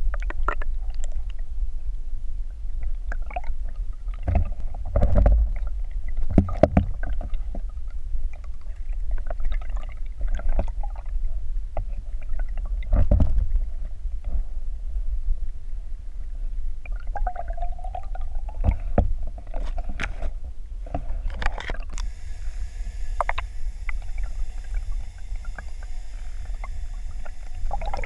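Muffled low rumble of water moving past an underwater camera housing, with scattered knocks and clicks. Near the end a faint steady high hum joins in.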